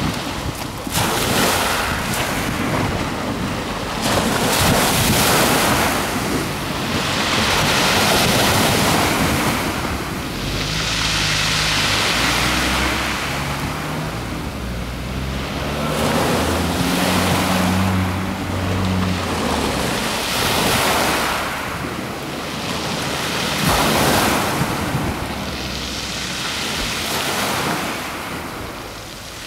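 Small waves washing against the shore, swelling and fading every few seconds, with wind buffeting the microphone. A low engine drone joins about ten seconds in and fades out about nine seconds later.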